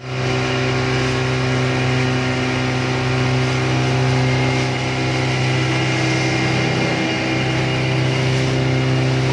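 Motorboat engine running steadily at cruising speed, a constant low drone with water rushing past the hull.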